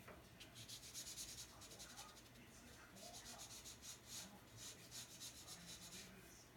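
Japanese brush pen rubbing over drawing paper: faint, scratchy strokes of the tip, several a second, as ink is shaded in.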